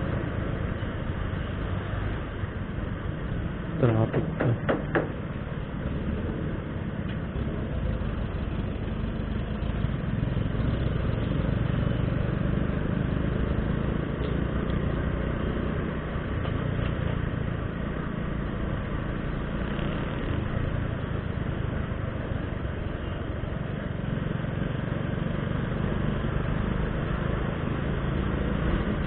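Motorcycle ride through town traffic as picked up by an action camera's built-in microphone: a steady mix of the bike's engine, wind and passing vehicles. About four seconds in, a few short, loud pitched blasts come in quick succession.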